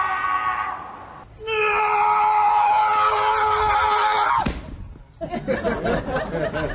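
Two long, steady, high-pitched screams: one trails off about a second in, and a second is held about three seconds before it cuts off. They are followed by a jumble of short, wavering cries or chatter.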